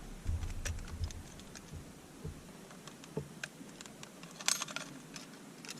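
Scattered light clicks and taps of fishing tackle being handled just after a bass is landed, with a quick rattle of clicks about four and a half seconds in.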